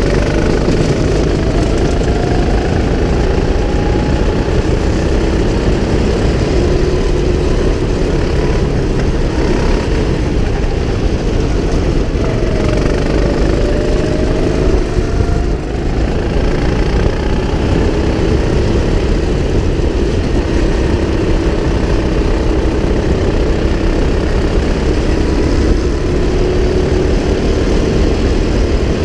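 Go-kart engine running hard, heard from on board the kart, its pitch falling as the kart slows for a corner about halfway through, then climbing again as it accelerates. A dense, steady rumble runs under it throughout.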